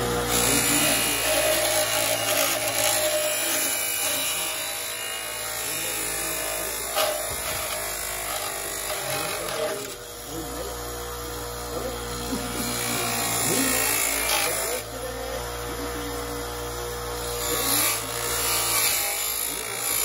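Bench grinder running with a painted metal bracket held against its spinning wheel, grinding the part with a steady motor hum under a hissing, scraping noise that dips briefly about halfway through.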